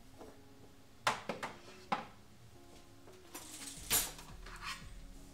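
A drinking glass and kitchenware being handled on a kitchen counter: a few sharp clinks and knocks, two about a second in, one near two seconds, and the loudest near four seconds.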